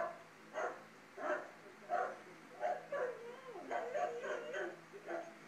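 A dog whining and yelping in short, repeated cries, roughly one to two a second, some sliding up and down in pitch, played through a laptop speaker: the excited dog greeting its returning soldier in a reunion video.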